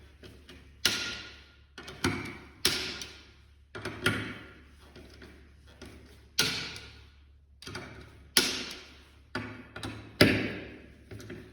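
A click-type torque tool, set to 1.8 N·m, working the cover bolts of a stainless steel tray. It makes a series of about ten sharp clicks and metallic knocks, irregularly spaced, each ringing briefly. The clicks signal that each bolt has reached the set torque.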